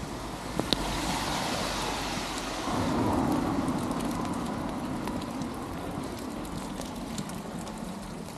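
Rain falling on a wet street, with a car's tyres hissing past on the wet road: the hiss swells to its loudest about three seconds in, then fades. A single sharp click sounds just under a second in.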